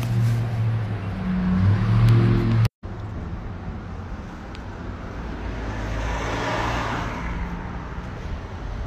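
Street traffic noise. A low steady hum cuts off abruptly about three seconds in, then a car passes, rising and fading about two-thirds of the way through.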